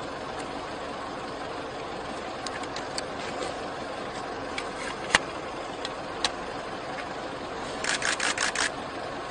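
A car engine idling steadily, with scattered sharp clicks over it, the loudest about halfway through, and a quick run of about six clicks near the end.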